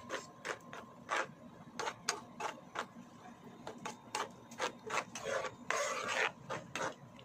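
Metal spoon stirring thick carbonara sauce in a nonstick frying pan, scraping the pan in quick short strokes about two or three a second, with one longer scrape near the end.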